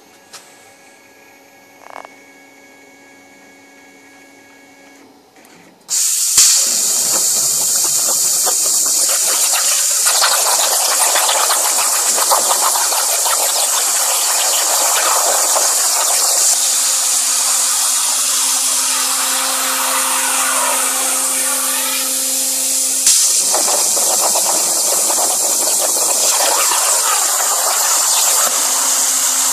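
A plasma cutter torch on a CNC table fires about six seconds in and then cuts with a loud, steady hiss of air and arc. A brief jolt comes near the end. Before the torch starts there is only a faint hum and a couple of clicks.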